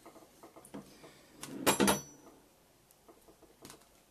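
Knocks and clatter of hard items being picked up and handled on a workbench while an airsoft barrel is fetched. A few light clicks, then a loud cluster of knocks about a second and a half to two seconds in, with a brief metallic ring.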